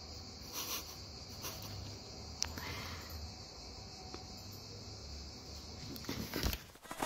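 Quiet room tone with a steady high hiss and a few faint taps, then a short flurry of soft taps near the end.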